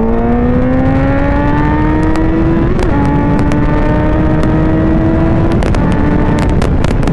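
Suzuki GSX-R 750's inline-four engine, with a Yoshimura exhaust, pulling hard under full acceleration. Its pitch climbs steadily and drops at upshifts about three seconds and five and a half seconds in, over a steady wind rumble on the microphone.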